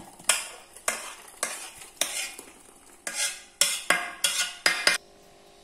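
A steel spoon scraping thick pineapple pachadi out of a tilted steel kadai into a steel tin: a run of sharp scrapes and clinks, about two a second, that stops about five seconds in.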